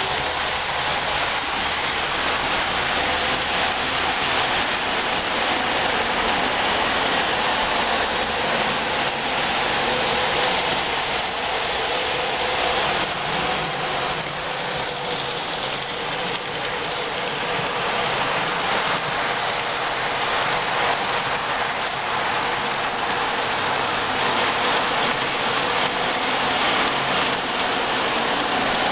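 O gauge Lionel model train running steadily around the layout track, a continuous whirring rumble of metal wheels on rail and the electric motor.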